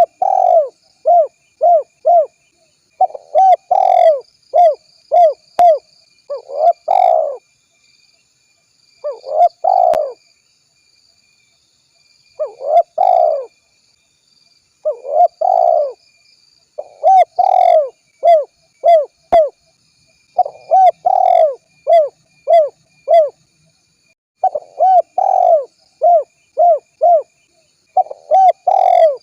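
Spotted dove cooing, a lure call: phrases of short, arched coos, each phrase holding one longer, louder coo, repeated with pauses of a second or two between phrases.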